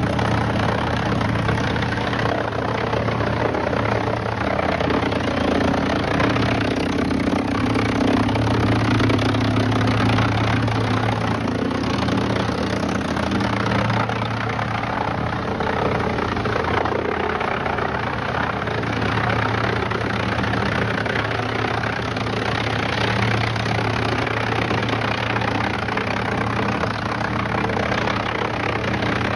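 Heavy machinery running steadily at constant speed: an even engine drone with a low hum and no distinct impacts.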